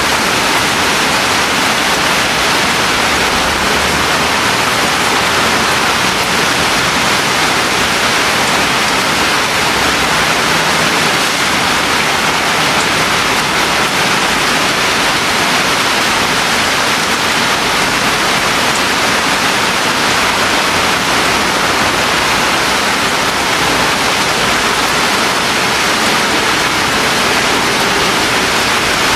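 Steady rain hiss, an even wash of noise that does not let up.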